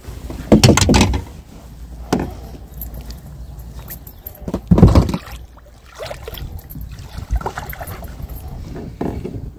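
Wels catfish thrashing at the surface beside a boat as it is grabbed by hand, with two loud splashes: one about half a second in and another about five seconds in, over steady water noise.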